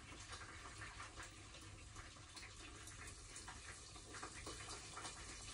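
Near silence: a faint, steady hiss of room noise with scattered faint ticks.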